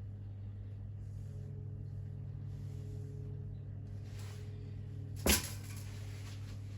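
Steady low hum with faint handling noises, and one sharp knock a little over five seconds in, typical of a tool or engine part being set down during the strip-down.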